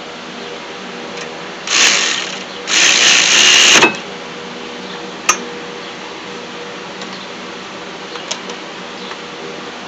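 Handling noise and metal clinks as a rear brake caliper is worked back over new brake pads and the rotor, over a steady background hum. There are two loud harsh bursts about two and three seconds in, the second about a second long, then a single sharp click a little after five seconds and a few light ticks.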